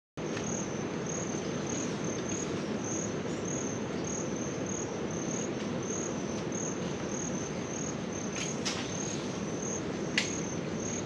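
Insects calling in a steady high trill that pulses about three times a second, over a low steady outdoor hiss. A couple of brief clicks come in the last few seconds.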